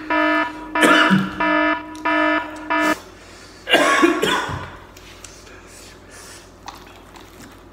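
An electronic beeping tone in a run of short, uneven beeps that stops about three seconds in. A man then coughs once, hard, just before the four-second mark.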